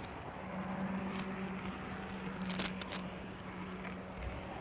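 N-scale model train running along its track, heard from a microcamera riding on board: a steady low hum under a hiss, with a sharp click about a second in and a quick run of clicks between two and a half and three seconds in.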